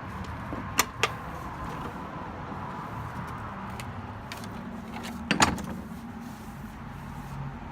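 Steady hum of road traffic, with two sharp clicks about a second in and a louder knock about five and a half seconds in.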